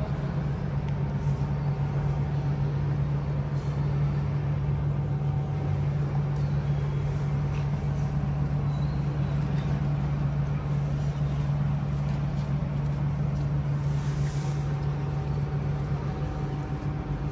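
Railway station ambience: a steady low hum under a constant, even background din.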